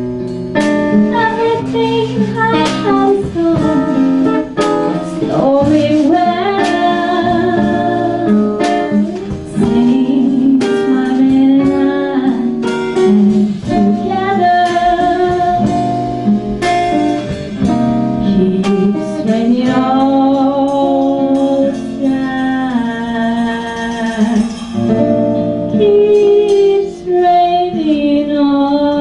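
A live jazz-blues ballad: a woman sings slow, held phrases over acoustic guitar accompaniment, with plucked notes and light percussion strikes throughout.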